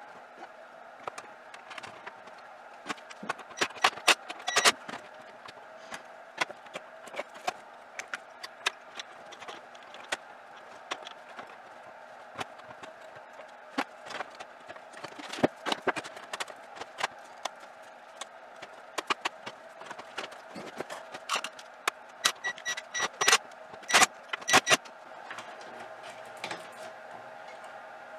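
Scattered clicks, taps and light metallic clinks of circuit boards, cable connectors and the sheet-metal chassis of an AV receiver being handled during reassembly. The sharpest clicks come in clusters about four seconds in and again towards the end, over a steady faint background noise.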